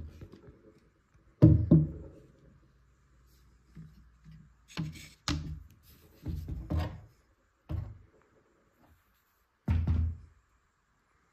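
Irregular knocks and clunks of a disassembled PFAFF sewing machine's bare metal frame and mechanism parts being handled and set down on a wooden workbench. The loudest knock comes about a second and a half in, and the rest follow in a loose run of single knocks and short clusters.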